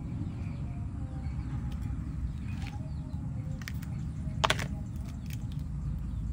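Shell of a big cooked shrimp being peeled off by hand, giving a few short crackling clicks, the sharpest about four and a half seconds in, over a steady low rumble.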